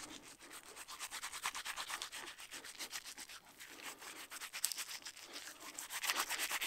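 Wet hands rubbing together with crushed Acacia longifolia (golden wattle) leaves and a little water, working up a soapy lather. The rubbing goes in quick, repeated strokes.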